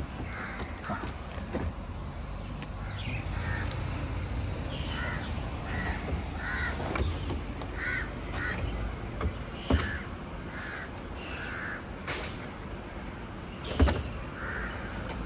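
Crows cawing again and again over a steady background din, with two sharp knocks, one near the middle and a louder one near the end.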